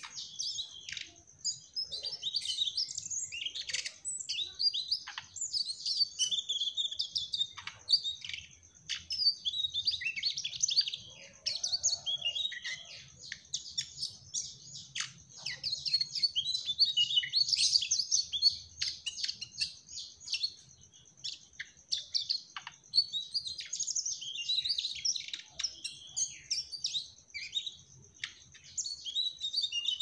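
Mugimaki flycatcher in full song: a rapid, near-continuous run of high, short chirps and twittering notes, broken only by brief pauses.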